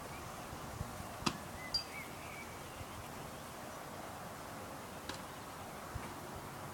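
Quiet outdoor background hiss with a few sharp clicks and some brief faint chirps. No motor or rotor is running.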